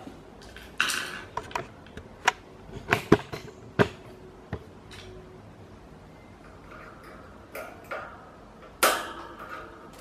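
Small plastic grille clips on a Loren Sid Tufão pedestal fan being worked loose and taken off the grille rim. There is a string of sharp clicks and knocks, a short scrape about a second in, and a louder scrape near the end.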